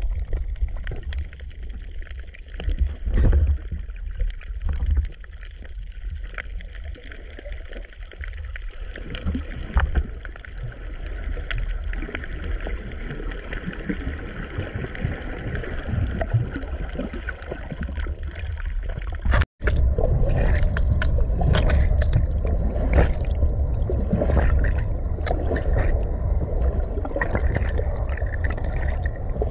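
Underwater sound picked up by a camera beneath the surface: a steady low rush of moving water with gurgling bubbles and scattered short clicks. About two-thirds of the way in the sound cuts out for a moment, then returns louder and denser, with many more quick clicks and crackles.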